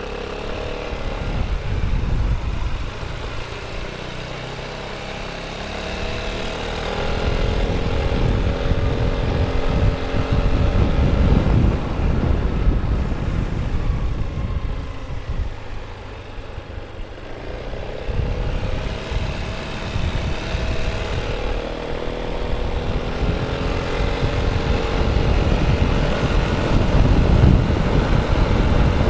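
Yamaha XMAX 300 scooter's single-cylinder engine and stock exhaust under way, the engine note climbing twice as it pulls, once in the first half and again in the second. A heavy rumble of wind on the microphone runs underneath.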